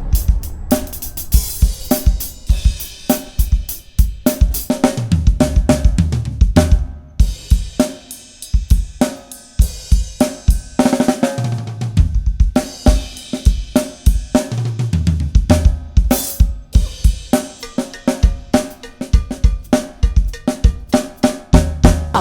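Drum kit played continuously: a Pacific Drums 805 series kit with a Mapex snare drum and Sabian cymbals. Dense strokes of snare, bass drum, hi-hat and cymbals ring out over music with a bass line.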